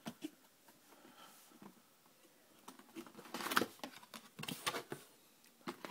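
Cardboard box and its paper inserts being handled as the box is opened: a few short rustling, scraping bursts after a quiet first couple of seconds, the loudest about three and a half seconds in.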